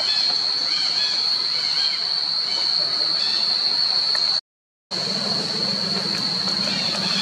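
Forest insect chorus: a steady, loud, high-pitched drone, with faint short chirps over it. It cuts out for half a second about four and a half seconds in.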